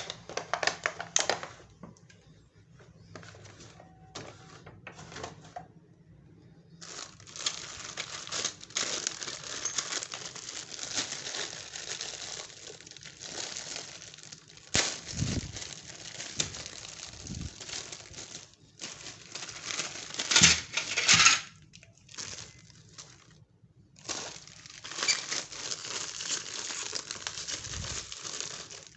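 Crinkling and rustling of plastic packaging being handled and opened, in long stretches broken by short pauses, with sharp clicks and taps among it. The loudest burst comes about two-thirds of the way through.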